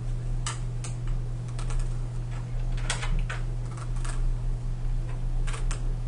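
Small disc-shaped counting markers clicking as they are picked up and set down one after another on a card and tabletop. The clicks come at irregular moments, over a steady low hum.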